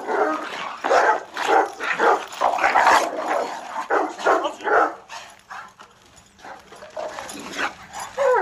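Dogs barking in quick, repeated bursts during a dog fight, dropping off for a couple of seconds past the middle before a few more barks near the end.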